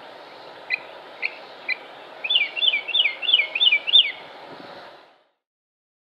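Mockingbird singing: a few separate sharp chips, then one phrase repeated about six times in quick succession, over a steady hiss of recording background. The song and the hiss end about five seconds in.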